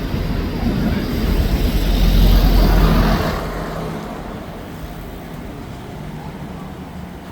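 A motor vehicle passes close by in street traffic. Its low engine rumble swells to a peak about two to three seconds in, then fades.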